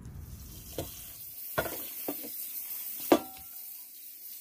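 Water splashing over freshly picked cat's ear leaves in a stainless steel bowl as a steady hiss, with a few knocks against the bowl; the loudest, about three seconds in, leaves the bowl ringing briefly.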